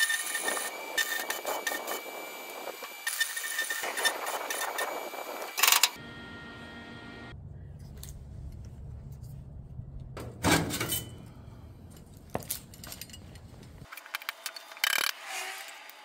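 Wire-feed welder crackling as it welds sheet-metal patch panels into a 1948 Willys truck cab, in two runs of a few seconds each separated by a short pause. Then a steady low hum with a couple of sharp knocks, and scattered clicks and taps near the end.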